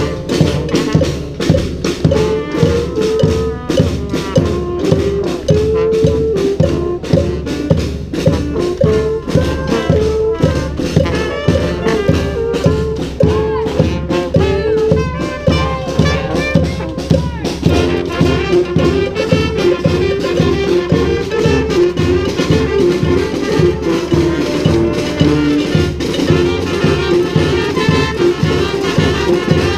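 Community street brass band playing a Peruvian cumbia: horns carry the melody over a steady beat of drums and shakers. A little past halfway the horn line moves into a new, lower phrase.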